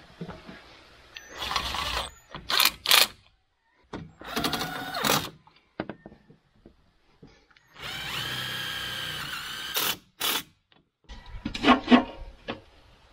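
Power drill running twice in short bursts, about a second and then about two seconds, driving screws, its motor pitch dipping briefly under load in the second run. Knocks and rattling of handling come between the runs.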